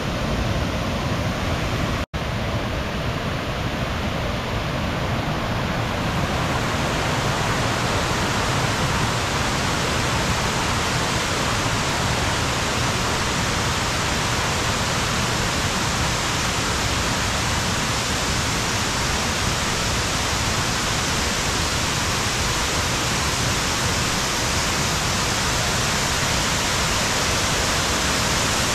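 Waterfall: a steady, loud rush of falling water. It cuts out for an instant about two seconds in and sounds brighter from about six seconds in.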